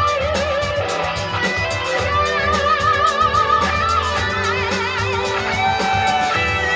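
A full music mix playing back, led by electric guitar: long held notes that waver with vibrato over a steady beat.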